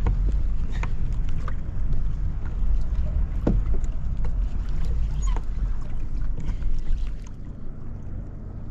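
Steady low rumble of wind and water around a sea kayak, with a few scattered small clicks and knocks; it eases slightly near the end.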